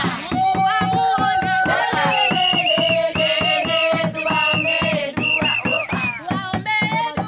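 A group of women singing together with long held high notes, over a quick, steady beat of hand claps.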